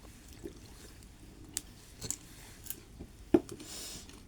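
Sounds of eating: scattered light clicks and taps of utensils and dishes with chewing, a sharper knock about three and a half seconds in, then a brief rustle.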